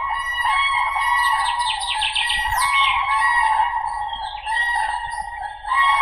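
Common cranes (Grus grus) trumpeting, loud, ringing calls that overlap almost without a break, louder again near the end.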